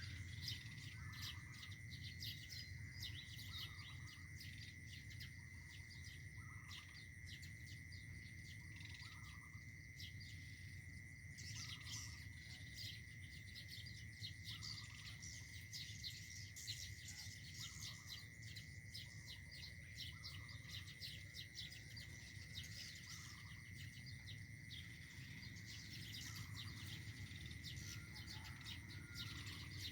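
Faint, quick bird chirps, with a short lower note about once a second, over a steady high insect trill.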